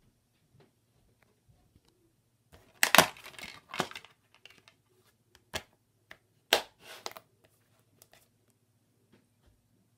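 Handling noise off-camera: sharp clicks and crinkling in short clusters, the loudest about three seconds in, single clicks around the middle, and another crinkly cluster about two-thirds through.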